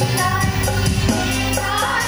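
A group of girls singing a song together, one voice carried by a handheld microphone, over accompaniment with a steady beat.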